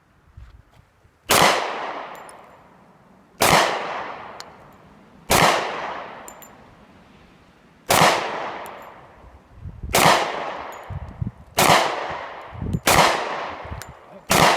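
Glock 30 Gen4 pistol firing .45 ACP 230-grain full metal jacket rounds: eight single shots at an uneven slow pace, one every one to two and a half seconds, each with a ringing echo tail.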